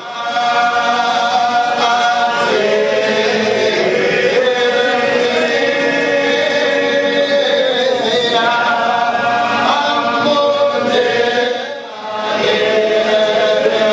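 Group of men chanting dhikr, a Muslim devotional chant of long held, slowly wavering notes, with a short break about twelve seconds in.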